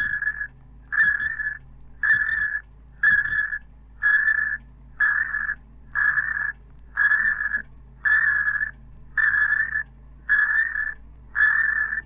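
An alarm sounding a high steady tone in pulses of about half a second, roughly one a second, over a steady low machinery hum. It cuts off sharply near the end.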